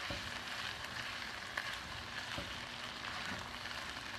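Chicken gizzards and livers sizzling steadily as they fry in oil in a pan, stirred with a silicone spatula, with a few soft scrapes.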